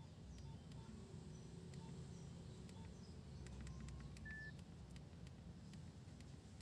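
Faint clicks of a mobile phone's keys being pressed over a low background hum, with one short high beep about four seconds in.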